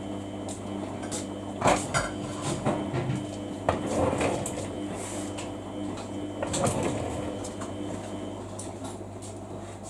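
Samsung washing machine on a quick wash cycle, its motor humming steadily while the drum turns, with irregular knocks and swishing as the load tumbles.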